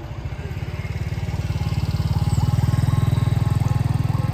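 Small motorcycle engine passing close by at low speed, its rapid firing pulses growing louder to a peak about three seconds in, then fading as it pulls away. A faint siren wails over it from about a second and a half in.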